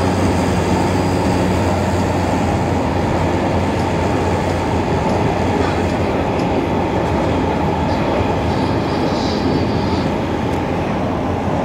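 C751C metro train (Alstom Metropolis) running at speed through a tunnel, heard from inside the car: a steady, loud noise of wheels on rail and traction equipment.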